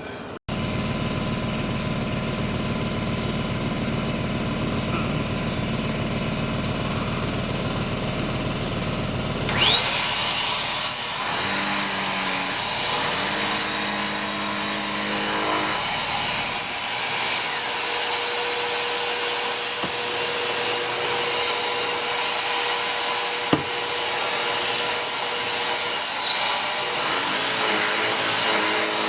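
Electric blower motor spins up about ten seconds in with a quick rising whine, then runs steadily at a high pitch, blowing dirt out of vacuum cleaner parts. Its pitch dips briefly once near the end. Before it starts there is a steady low hum.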